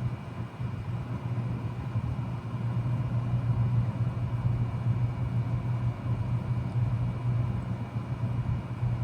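2007 Bard 3.5-ton wall-hung heat pump running steadily in heat mode, a constant hum with faint higher tones over the whoosh of its fan.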